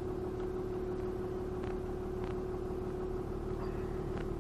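Pickup truck heard from inside the cab while driving slowly: a steady engine and road drone with a constant low hum. A few faint ticks sound within it.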